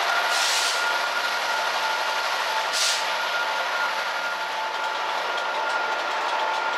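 Passenger coaches of a Class 67 diesel-hauled train rolling past close by, with a steady whine running under the rumble and two short hisses, about half a second and three seconds in.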